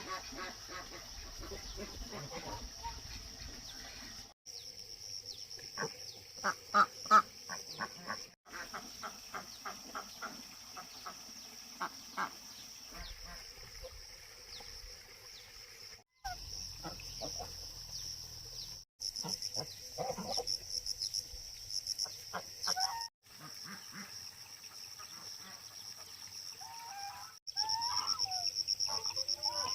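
Domestic ducks quacking in runs of short repeated calls, loudest about six to seven seconds in, over a steady high buzz of insects. The sound cuts off abruptly several times where the shots change.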